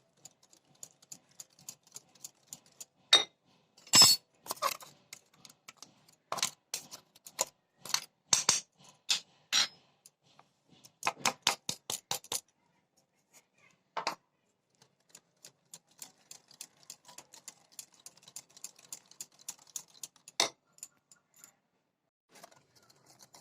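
A utensil clinking and tapping against a mixing bowl as melted butter and powdered sugar are beaten together: irregular sharp clicks, some in quick runs, with a few louder knocks.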